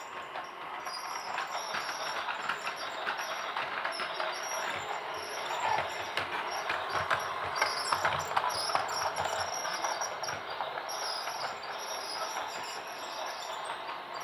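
Toy train running, a fast continuous rattle of small clicks that grows louder in the middle and eases off again toward the end.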